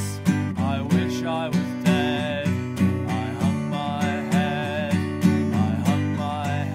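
Acoustic guitar strummed in a steady rhythm, about three strokes every two seconds, under a sustained melody line that wavers in pitch.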